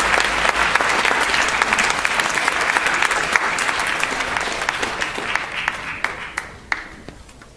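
Audience applauding, a dense clapping that thins out and dies away over the last two seconds, ending in a few single claps.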